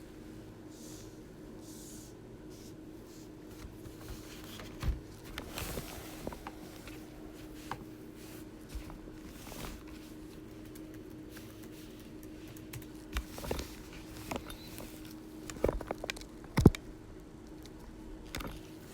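Light handling noises at a table: scattered small taps and clicks, with one sharper click near the end, over a steady low hum.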